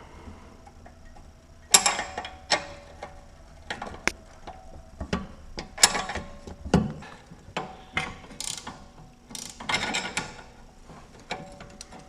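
Hand ratchet wrench clicking in short, irregular strokes while working the nut on a sway bar end link.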